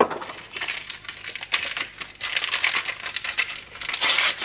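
Rapid crinkling and rustling of packaging being handled and torn open, in crackly bursts that grow louder near the end.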